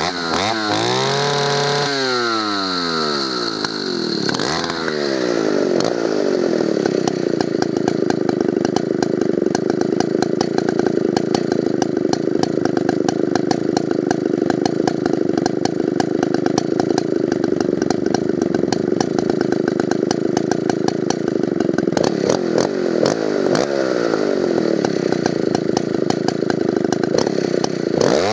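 Solo 642 two-stroke chainsaw engine (106 cc) revved and allowed to fall back a few times. It then idles steadily for about twenty seconds and is revved up sharply near the end.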